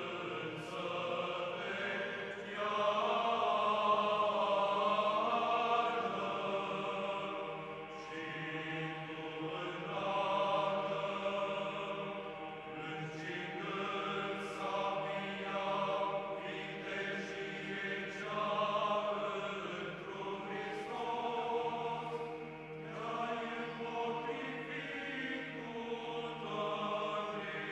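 Background music: Orthodox church chant, voices singing slow, drawn-out phrases.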